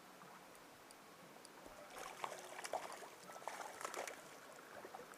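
Steady faint rush of a mountain stream. About two seconds in, irregular splashing and sloshing begins as a hooked trout thrashes while being brought in.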